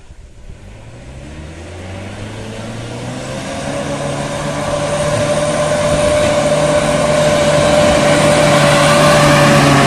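Mitsubishi L300 pickup's engine pulling up a steep hill at steady revs, growing steadily louder as it climbs toward the listener.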